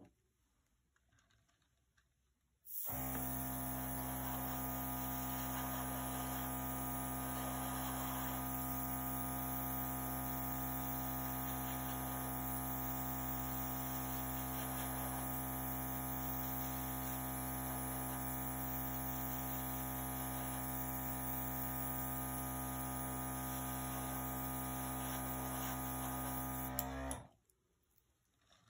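Small air compressor for an airbrush running with a steady electric-motor hum. It starts abruptly about three seconds in and cuts off abruptly a second or so before the end.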